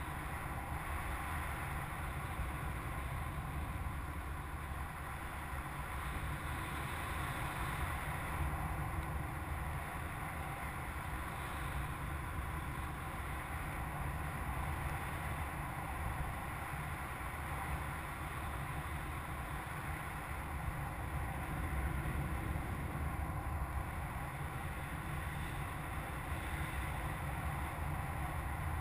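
Steady rush of air over the camera microphone on a hang glider in flight, with no changes or breaks.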